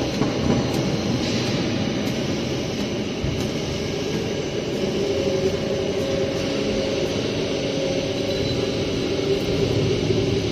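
Hydraulic wheelset press running during its automatic wheel-mounting cycle: a steady mechanical rumble and hum, with a steady whine joining about halfway through.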